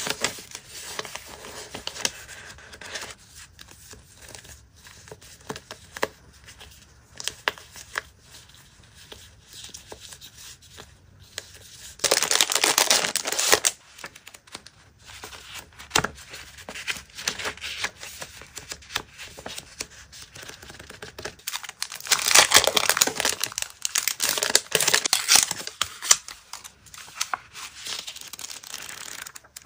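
Paper stationery being handled close up: sheets of printed material paper and a stack of note paper rustling, crinkling and being flicked through. Two stretches of louder rustling stand out, a short one about twelve seconds in and a longer one from about 22 to 26 seconds.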